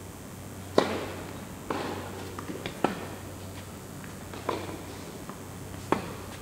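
Tennis rally: a serve followed by four more racket strikes on the ball, about one every second or so, each ringing on in the echo of a covered hall, with fainter ball bounces between the strikes.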